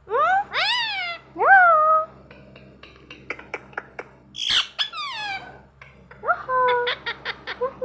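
Rose-ringed parakeet giving high, squeaky calls that rise and then fall in pitch, two in the first two seconds and a few more near the end. Between them come a run of quick sharp clicks and one short harsh squawk about four and a half seconds in.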